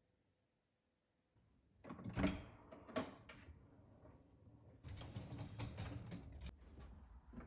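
A dishwasher door is unlatched and lowered open with clicks and knocks about two seconds in. Then the wire upper rack rolls out on its rails with a rattle, ending in a click.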